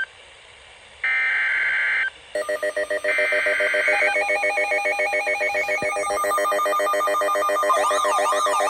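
Emergency Alert System SAME data bursts, a shrill buzzing digital warble about a second long, heard once about a second in and again about three seconds in. From about two seconds in, electronic synthesizer tones play with them. They pulse at first, then hold a steady chord, with a tone warbling up and down near the end.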